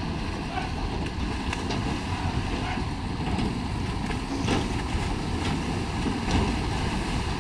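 Cattle leaping from a livestock barge into river water, splashing as they land and swim, over a steady low rumble.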